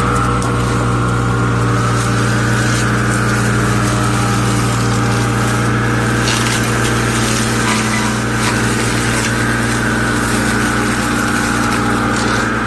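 Excavator with a cutter attachment running steadily: a deep engine drone with a high, slightly wavering whine over it and a few faint knocks about halfway through.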